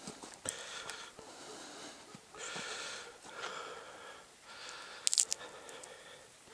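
A person breathing hard while pushing through dry scrub, with vegetation brushing and rustling and a few sharp cracks of twigs, the loudest about five seconds in.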